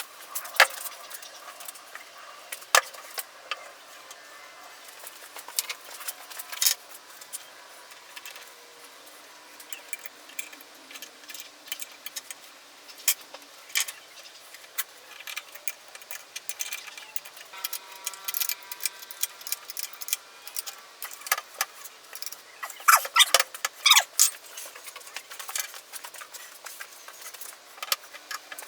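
Metal parts of an antique hand-powered Champion Blower & Forge post drill clinking and clattering as they are handled and fitted back together: scattered light clicks and taps, some faintly ringing, with a burst of louder clanks near the end.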